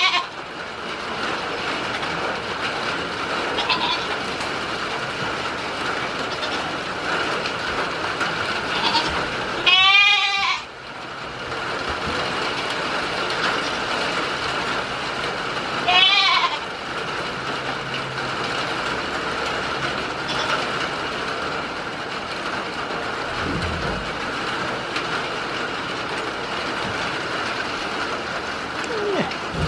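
Goats bleating: two loud, wavering bleats about ten and sixteen seconds in, with a few fainter short calls between, over a steady hiss of rain.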